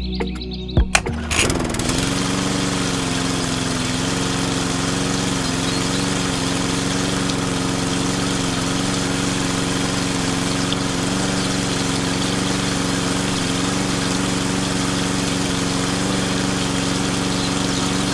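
Miniature DIY water pump switched on: a few clicks, then its small electric motor spins up about a second in and runs with a steady hum while it pumps water.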